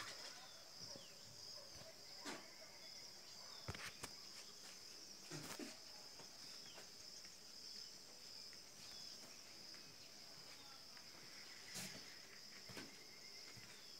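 Faint, steady, high-pitched insect chirring, like crickets, running throughout, with a few soft knocks scattered through it.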